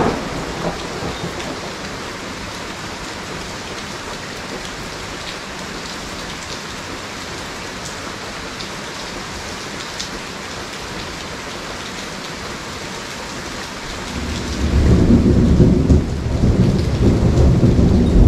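Steady heavy rain from a tropical thunderstorm, with a brief loud crack at the very start. About fourteen seconds in, a deep rolling rumble of thunder swells and grows louder.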